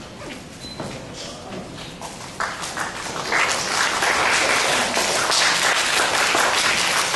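Audience applauding, starting about two and a half seconds in and swelling to full applause a second later.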